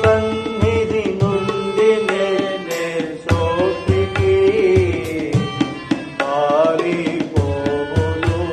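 A devotional song in Indian classical style: a voice singing over tabla and other instrumental accompaniment.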